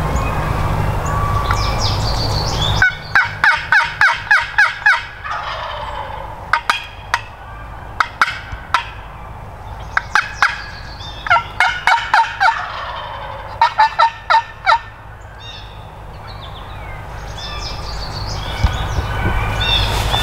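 Turkey yelping: four runs of sharp, evenly spaced yelps, about four a second, the first run starting about three seconds in and the last ending about fifteen seconds in.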